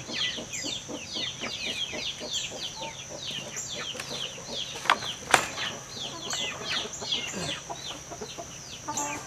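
Chickens clucking and calling in a coop, many short falling calls a second, over a steady high hum. Two sharp knocks about five seconds in as the wooden coop gate is handled.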